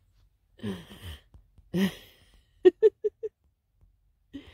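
A woman's soft wordless vocal sounds, then a short laugh of four quick pulses about two and a half seconds in.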